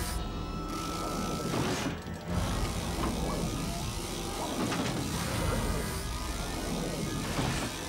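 Cartoon machinery sound effects: robotic claw arms clattering and rattling continuously as they grab and carry a cluster of small robots, with a music score underneath.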